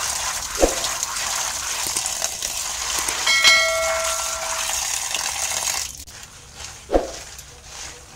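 Tap water pouring onto dried yellow peas in a plastic colander while a hand stirs and rubs them, stopping about six seconds in. Around the middle a short metallic ring sounds, and there are two dull knocks, one near the start and one near the end.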